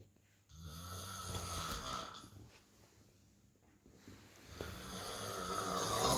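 A sleeping man snoring: two long snores about four seconds apart, each lasting nearly two seconds, the second one louder.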